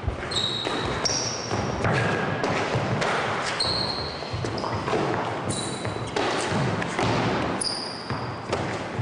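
Trainers squeaking and scuffing on a wooden gym floor as two men grapple and shuffle around each other, with several short high squeaks over a steady rustle of scuffling feet and bodies.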